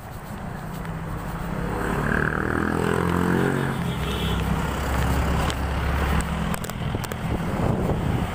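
Road traffic: a motor vehicle's engine passes close by, its note falling in pitch as it goes, followed by a deep low rumble that eases off about two-thirds of the way through.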